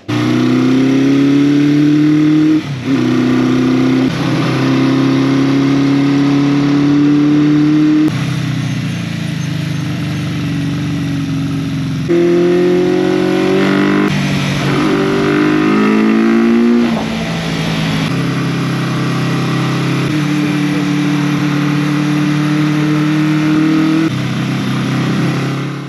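Honda CB400F motorcycle's four-cylinder engine running loud, breathing through K&N pod air filters; the pitch steps and glides up and down several times as the throttle is opened and eased off.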